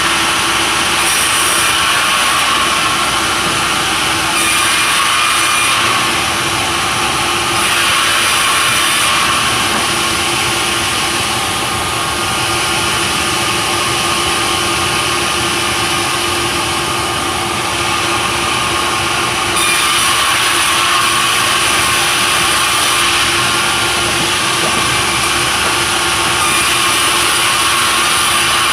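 Sawmill saw running and cutting timber, a loud continuous machine noise with a steady hum beneath it. The noise dips and swells slightly every few seconds.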